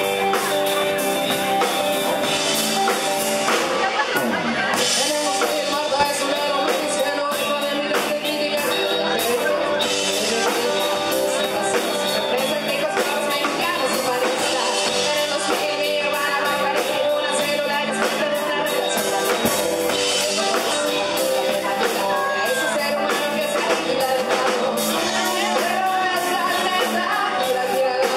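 Live rock band playing electric guitars and drums, with a woman singing lead into a handheld microphone.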